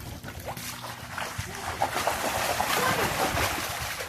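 Children splashing and playing in shallow water in a partly filled above-ground pool, with scattered splashes and their faint voices and shouts.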